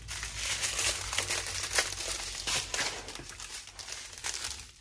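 Small plastic bags of diamond-painting drills crinkling and rustling as they are handled, in quick irregular crackles.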